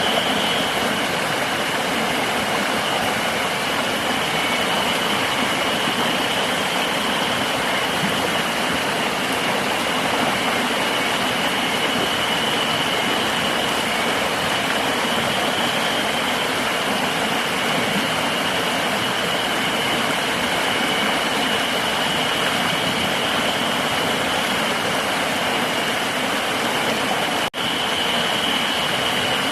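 Steady rush of flowing river water with a continuous high-pitched insect drone over it. The sound cuts out for an instant about two seconds before the end.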